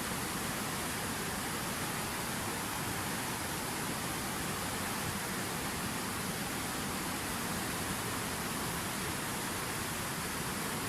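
Water falling steadily from a fountain waterfall, an even, unbroken rushing noise.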